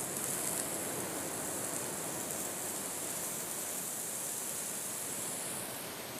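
Bay scallops with their coral searing in hot, darkening butter in a frying pan: a steady high sizzling hiss that thins out near the end.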